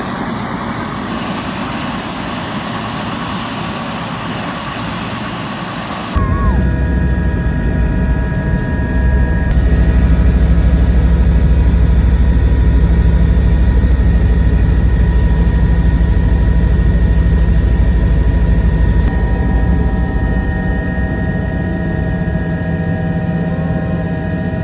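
Helicopter in flight: a steady hiss for about six seconds, then abruptly a heavy, deep rotor drone with steady turbine whine tones above it, as heard inside the closed cabin.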